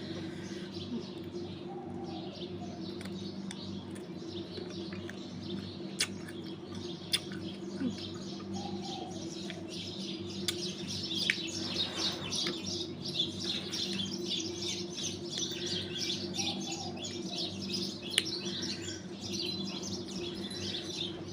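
Small birds chirping and twittering, busier in the second half, over a steady low hum, with a few sharp clicks.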